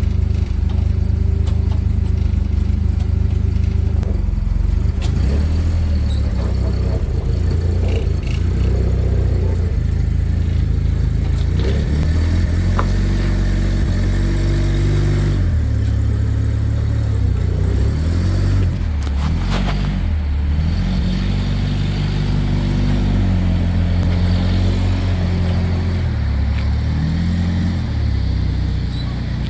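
Heavy truck's engine running, its pitch rising and falling repeatedly as the throttle is worked, with a brief clatter a little past the middle.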